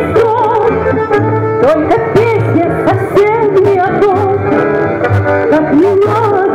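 Live Russian folk-instrument ensemble playing: plucked domras, a bayan accordion and a contrabass balalaika, with a woman singing into a microphone through a PA.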